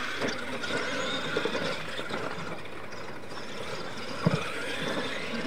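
Radio-controlled scale monster trucks racing on a dirt track, their motors running and tyres churning dirt. About four seconds in there is a single sharp thump as a truck lands off a ramp.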